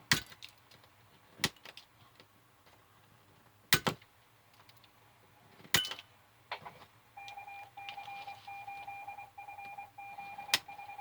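Side cutters snipping a display's header pins off flush against a metal rule: about half a dozen sharp, single snips a second or two apart. From about seven seconds in, a steady high beep-like tone sounds underneath.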